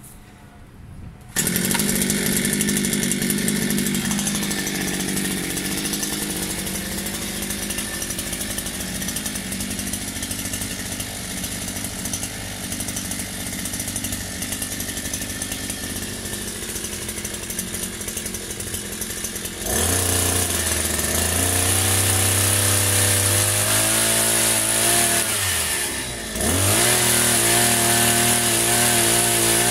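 Small petrol engine of a multi-tool fitted with a pole chainsaw attachment, starting up about a second in and running at low speed. About two-thirds of the way through it is revved up and its pitch moves up and down, with a brief drop in speed near the end before it is revved again.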